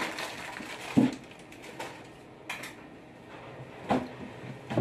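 Dishes and utensils clattering on a table: a handful of separate knocks and clinks, the loudest about a second in with a brief ring.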